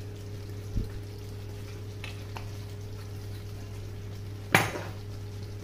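Kitchen sounds at a stove: a single sharp clatter of cookware about four and a half seconds in, and a soft thump just under a second in, over a steady low hum. A thick white sauce is simmering in a nonstick frying pan on a gas burner.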